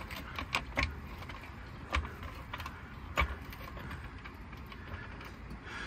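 Metallic clicks and clunks from a trolley jack and the rear suspension as the subframe is jacked up and lined up with the shock absorber. A quick run of clicks comes in the first second, then single knocks about two and three seconds in.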